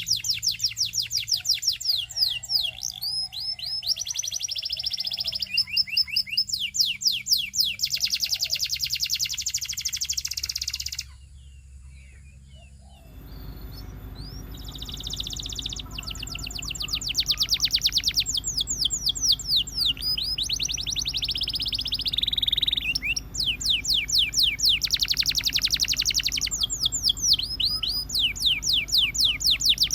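Domestic canary singing: long rapid trills of repeated high notes and sweeping rolls. The song breaks off for about two seconds a third of the way in, then resumes.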